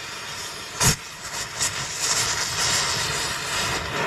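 Cutting torch hissing as it heats and cuts through the wheel bearing on a Jeep Wrangler axle shaft. There is a sharp pop about a second in and a few smaller crackles, and the hiss grows stronger from about two seconds in.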